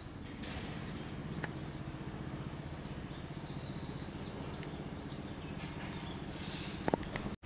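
Outdoor ambience: a steady low rumble of distant traffic with a few short bird chirps and a couple of faint clicks.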